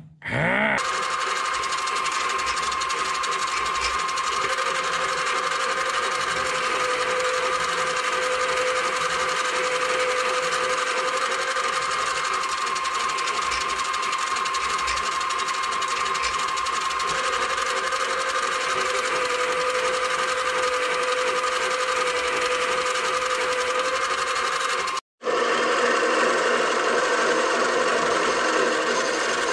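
Benchtop metal lathe running steadily while turning a metal part, its motor and drive giving a steady whine with two held tones. It cuts out for a split second about 25 seconds in and then runs on.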